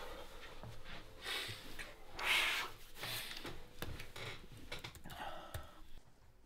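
A man breathing heavily, with several loud gasping breaths; the loudest comes about two and a half seconds in.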